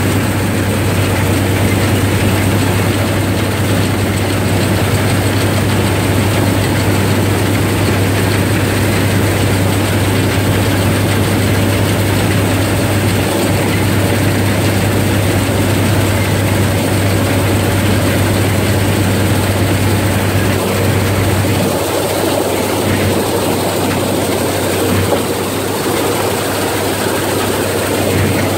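John Deere 55H combine harvester running under load while it cuts wheat: a steady, loud machine drone with a strong low hum.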